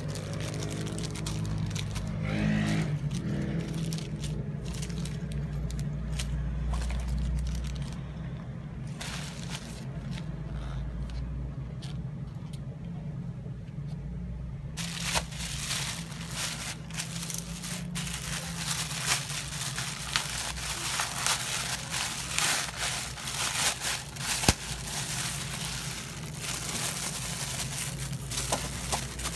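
Plastic packaging bags crinkling and rustling as they are handled, busier in the second half and broken by scattered sharp clicks, over a steady low hum.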